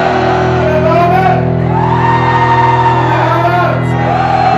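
Live rock band holding a steady sustained chord on electric guitars and bass, with long drawn-out vocal shouts wavering over it.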